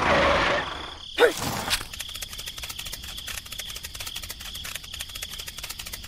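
A short noisy burst and a quick swoosh, then insect-like chirping: rapid, dense ticking over a steady high whine, like a cricket ambience bed.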